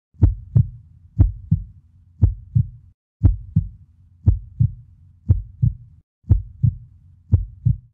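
Heartbeat sound effect: eight double "lub-dub" thumps, about one beat a second, steady and even.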